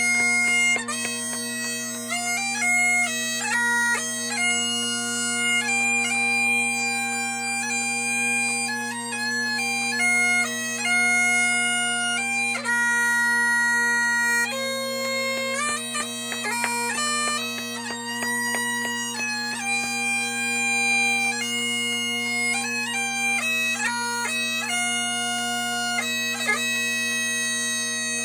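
Great Highland bagpipes playing a tune: the chanter's melody runs over steady, unchanging drones, with quick grace-note flourishes between the held notes.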